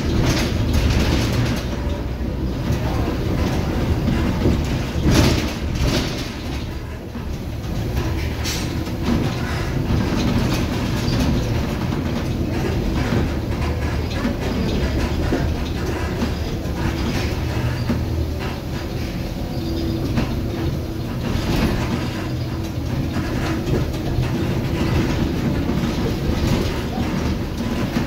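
Volvo B7R LE city bus under way, its six-cylinder diesel and road noise making a steady low rumble, with occasional knocks and rattles.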